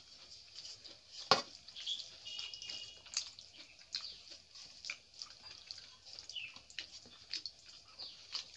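Bare-hand eating of rice and curry from steel plates: fingers mixing wet rice and chewing make a scatter of small wet clicks and smacks, with one sharp click about a second in.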